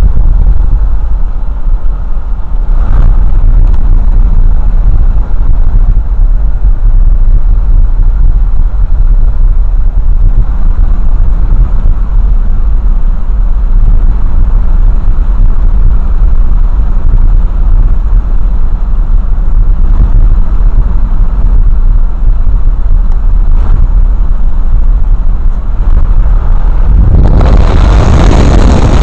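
Road and wind noise heard from inside a moving vehicle: a loud, steady low rumble. About two seconds before the end it swells into a louder rush of wind.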